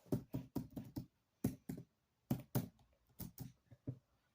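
About a dozen light, irregular taps and knocks, coming in small clusters of two or three.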